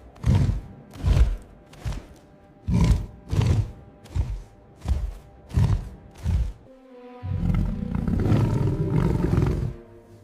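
Heavy rhythmic thuds, about one every two-thirds of a second, over steady background music, then a long, loud animal roar starting about seven seconds in.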